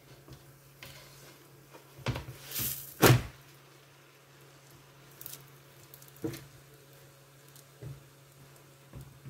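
Thin cooked rgag pastry sheets being handled and turned over on a round metal pan: a brief soft rustle and a few light knocks, the loudest about three seconds in, then small scattered taps over a faint low hum.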